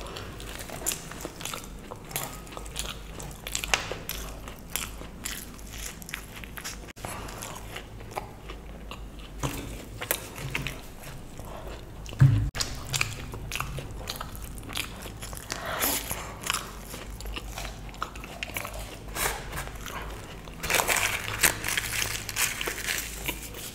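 Close-miked eating: chewing mouthfuls of luchi and potato curry, with many small wet mouth clicks. There is a single thump about halfway, and a denser run of crackly biting near the end.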